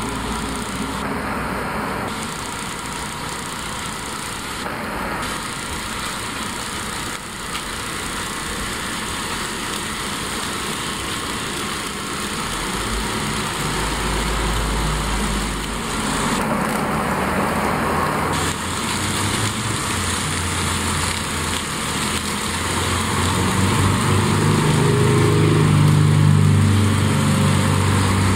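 HO scale model diesel-hauled freight trains running along sectional track: small electric motors whirring and wheels ticking over the rail joints. It grows louder near the end as a train passes close, and a low droning tone that shifts in pitch in steps joins in during the last few seconds.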